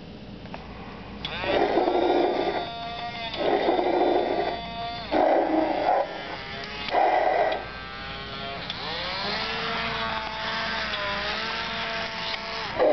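Growling roars: four short rough bursts in the first half, then one long wavering roar lasting about four seconds.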